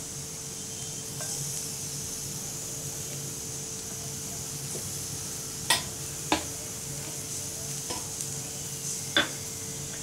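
Oil going into a nonstick frying pan on the stove: a steady hiss and faint hum, with a few sharp clicks against the pan around the middle and again near the end.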